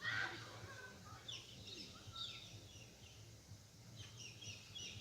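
Wild birds chirping, many short high calls that mostly fall in pitch, over faint background noise; a brief louder sound right at the start.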